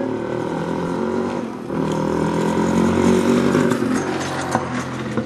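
A motorcycle engine passing close by, getting louder about two seconds in and easing off again near the end.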